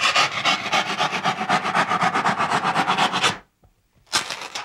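A thin hand-saw blade sawing through a block of styrofoam in fast, even rasping strokes, about nine a second, that stop abruptly after a little over three seconds. A second short burst of sawing comes near the end.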